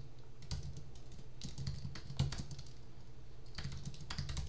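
Computer keyboard typing: short, irregular bursts of key clicks with pauses between them.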